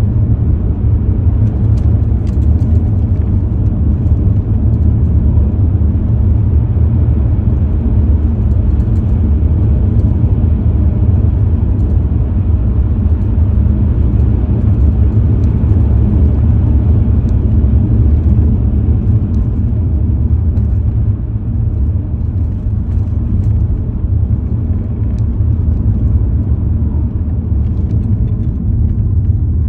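Steady low rumble of a moving car heard from inside the cabin: road and engine noise while driving. It eases slightly about two-thirds of the way through.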